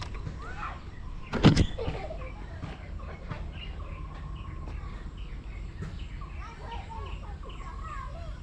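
Small birds chirping and calling over and over, short rising and falling notes with a few held whistles. About a second and a half in there is one loud, close thump.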